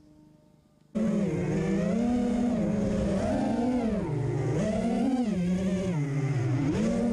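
FPV racing quadcopter's motors whining, heard from the onboard camera. The whine starts suddenly about a second in and rises and falls in pitch as the throttle changes.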